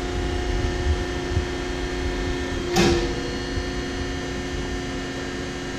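Baykal APH 3710-220 hydraulic press brake switched on and idling, its hydraulic pump unit giving a steady hum, with one sharp click a little under three seconds in.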